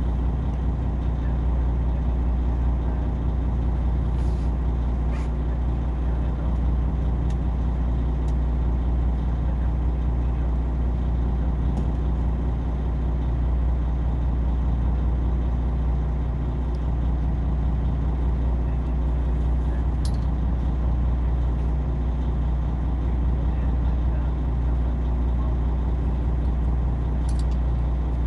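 Boat engine running at a steady pace, a low, even drone with a few faint clicks over it.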